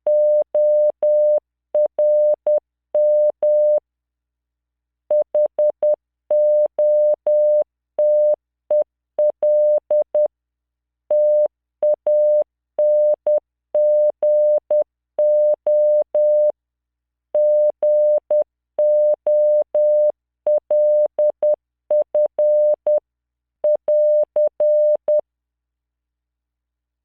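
Morse code sent at 10 words per minute as a computer-generated 600 Hz tone: short and long beeps in character groups with pauses between them. It stops a couple of seconds before the end.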